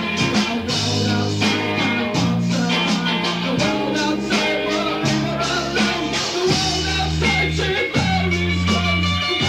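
Rock band playing: electric guitar over bass notes that change about once a second, with drums keeping a steady beat.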